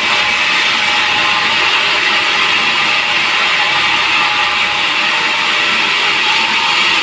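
Sawmill saw running steadily through a teak log, a loud continuous high-pitched rasp with no let-up.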